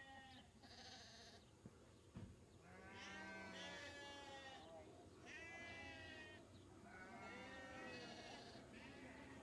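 Sheep bleating, faint: three drawn-out bleats in the middle of the stretch, with a few fainter calls around them.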